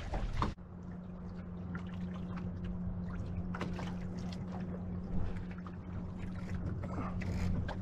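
Water trickling and splashing against the hulls of an F16 sailing catamaran under sail, with scattered small splashes over a steady low hum. A rush of noise at the start stops abruptly about half a second in.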